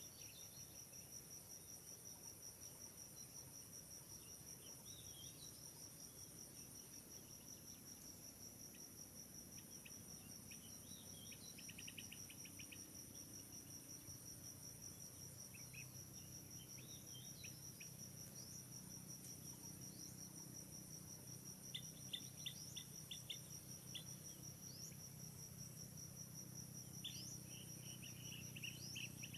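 Faint, steady insect trilling, typical of crickets, as one continuous high whine. Clusters of short, high chirps come in about twelve seconds in and again repeatedly in the last third.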